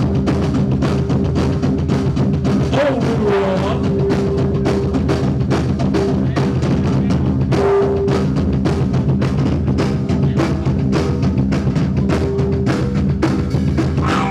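Rock band playing live in an instrumental passage: a drum kit beats steadily, with kick and snare hits at an even pace, over sustained bass and guitar notes. The recording is loud and poor in quality.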